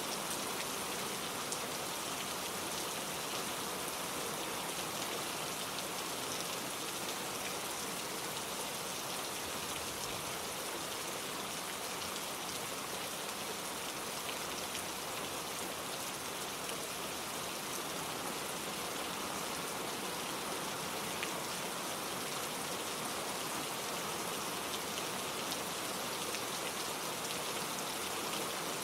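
Steady rain falling on leaves and plants, an even hiss with scattered drop taps.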